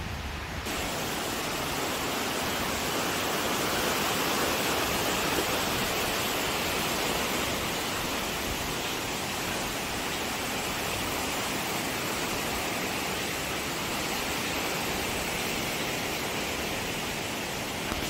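Mountain stream rushing over rocks: a steady, even rush of water that grows a little louder over the first few seconds.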